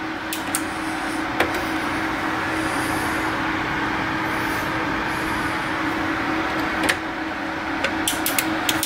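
Steady whoosh of a running desktop PC's cooling fans with a constant low hum, and a few light clicks.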